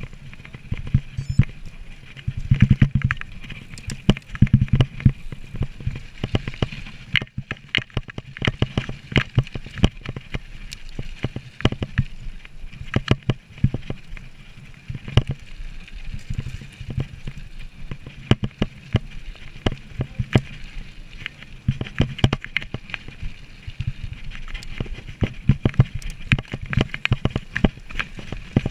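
Mountain bike ridden fast over rough ground at night, heard close up from the bike: dense, irregular rattling and knocking of the frame and fittings over bumps, over a steady rumble of tyres and wind.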